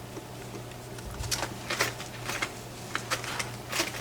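Light metal clicks and taps of lock-picking tools being handled at a lock, scattered and irregular, starting about a second in, over a low steady hum.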